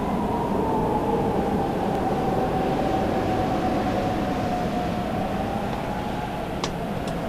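Steady low rumbling ambience on an anime soundtrack, with a faint whistling tone that slowly sinks in pitch, and a few sharp clicks near the end.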